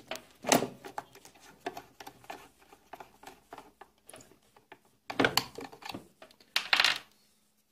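Clicks, taps and small rattles of a rotary tool's collet wrench, bit and metal parts being handled while the bit is changed, with a sharp click about half a second in and two bursts of rattling near the end.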